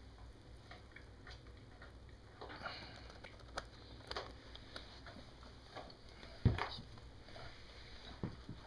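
A white duckling's bill nibbling and pecking at a man's face: soft, scattered little clicks. There is one sharper thump about six and a half seconds in.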